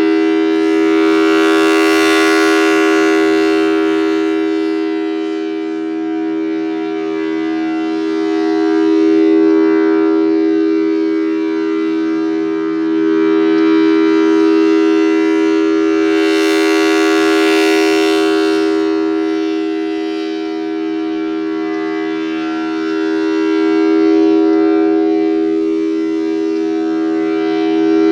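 Federal Signal Thunderbolt 1000T outdoor warning siren with a 4/5-port chopper, holding a steady-pitched two-note chord. As the rotating horn sweeps past, the sound swells louder and brighter about every 15 seconds and then fades back.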